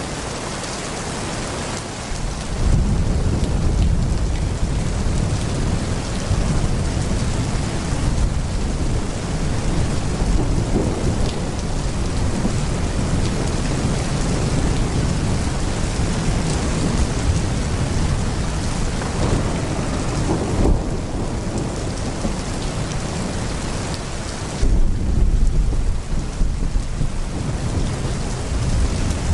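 Heavy rain pouring steadily, with rolling thunder rumbling underneath. The thunder comes in a few seconds in and swells again near the end.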